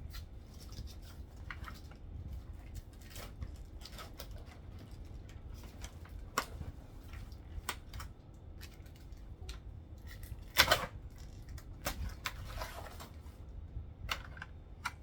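A package being handled and unwrapped by hand: scattered clicks, taps and crinkling of packaging, with one louder crackle about ten and a half seconds in.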